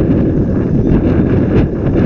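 Wind buffeting the microphone: a loud, steady low rumble, with a few faint ticks.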